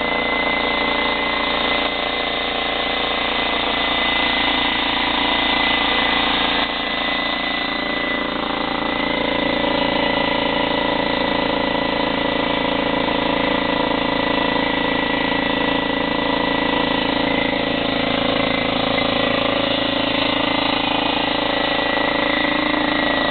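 Dewalt 15-gallon vertical air compressor running steadily just after being switched on, pumping up its tank. A steady high whine rides over the motor and pump, with a slight drop in level about six seconds in.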